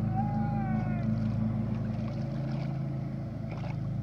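Steady low hum of a boat engine running, with a brief falling tone in the first second.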